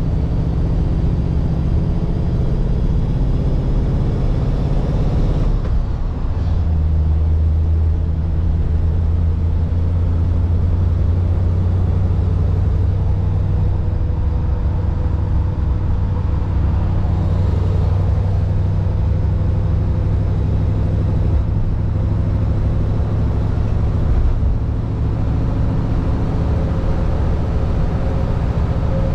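A 1948 Mercury's 239 cubic inch flathead V8 running under way. The engine note climbs for the first few seconds, drops to a lower note about six seconds in, holds steady, and starts rising again near the end.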